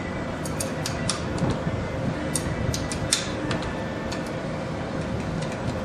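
Ratchet and socket clicking in short, irregular runs as the carburetor boot nuts on a two-stroke snowmobile engine are snugged down, over a steady low hum.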